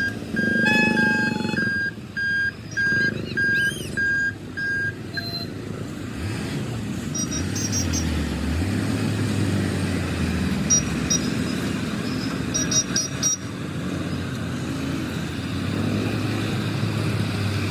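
Repeated short electronic beeps, about one every two-thirds of a second, for the first five seconds or so. Then a steady din of road vehicle engines, motorcycles among them, running while waiting at a railway level crossing.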